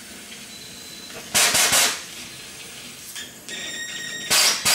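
Cutting torch giving two short bursts of hissing gas, about a second in and again near the end, over a softer steady hiss. The blasts are tests of the torch, whose tips are clogged.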